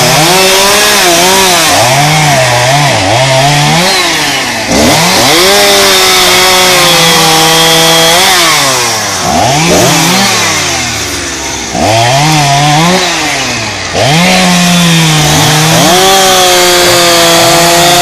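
Two-stroke petrol chainsaw cutting through a thick tree limb, its engine speed rising and sagging as the chain bogs in the wood. Several times it drops back briefly and then revs up again, and it runs high and steady near the end.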